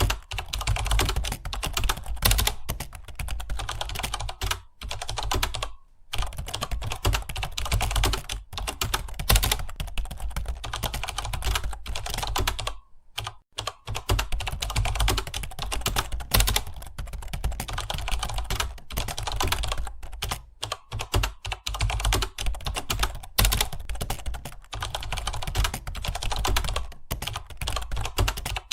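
Fast, continuous typing on a computer keyboard: a dense stream of key clicks, with brief pauses about six and thirteen seconds in.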